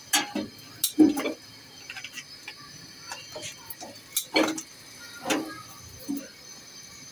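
Chicken feet crackling over a gas burner flame as their skin scorches: about half a dozen sharp, irregular pops. The cook takes this popping as the sign that the skin is starting to split and the feet are nearly ready.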